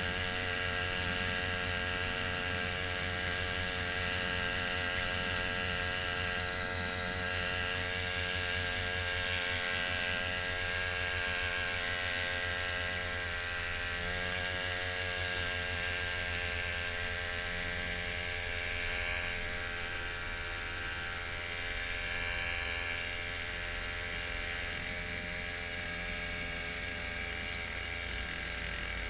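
Small motor mounted on the side of a homemade kayak, running steadily under way, its pitch wavering slightly.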